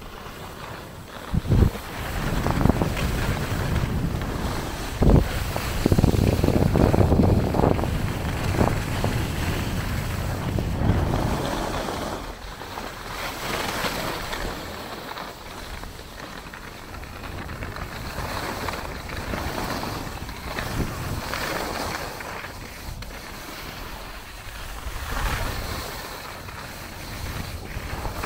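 Wind buffeting a handheld camera's microphone while skiing downhill, over the hiss and scrape of skis sliding on packed snow. The rumble is heaviest in the first half, with a couple of sharp knocks, then eases.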